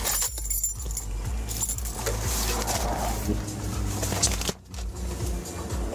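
Rustling, clicks and light knocks of things being handled and moved about inside a car, close to a body-worn camera, over a steady low rumble.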